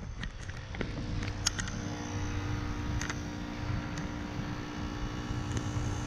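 Outdoor unit of a 2006 Heil 3-ton heat pump running with a steady hum and low rumble. A few light clicks fall over it.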